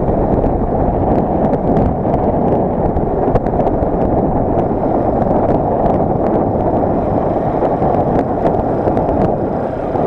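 Wind rushing over the microphone of a moving motorcycle, mixed with the bike running; a loud, steady noise throughout.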